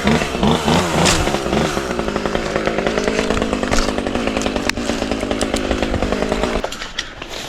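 Chainsaw revving up and down several times, then running steadily at high speed before cutting off abruptly near the end.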